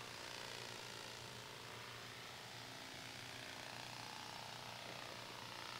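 AeroVironment Nano Hummingbird flapping-wing drone in flight, its wings and drive motor giving a faint, steady buzz.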